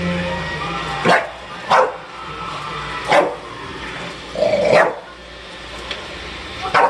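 A dog barking five times, a second or more apart, the fourth bark longer than the rest.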